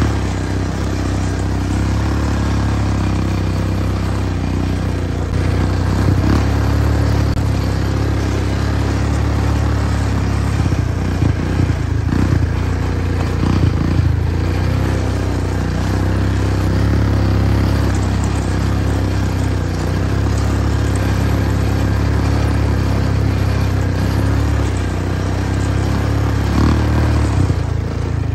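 An engine running at a steady speed, a loud low drone with rattling and clatter over it.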